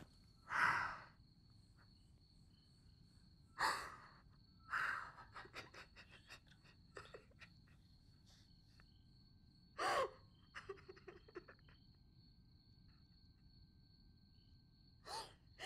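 A woman crying into her hands: four loud gasping breaths, with runs of small wet clicks between them.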